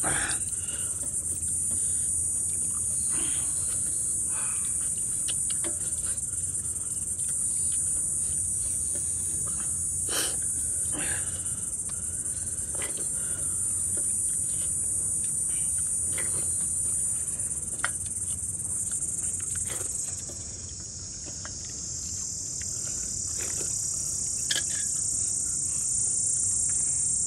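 Steady high-pitched drone of insects, shifting slightly lower and dipping in loudness about two-thirds of the way through, with a few faint short clicks scattered over it.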